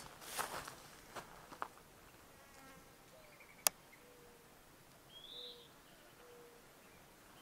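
A few footsteps in dry grass. Then a quiet stretch of faint insect buzzing, a single sharp click about three and a half seconds in, and a short high chirp a little after five seconds.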